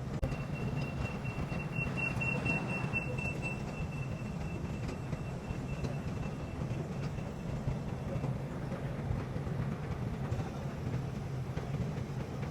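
Train running on the track with a steady low rumble. A thin, high steady whine sounds over it from the start and fades out about seven seconds in.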